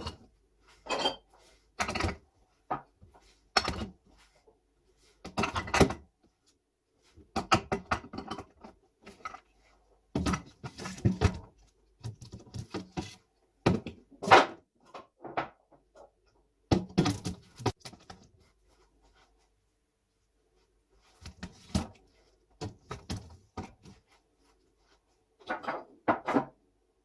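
Food containers and kitchen items being handled and set down while a fridge is organised: a string of short knocks, clinks and rattles with silent gaps between them, loudest about halfway through.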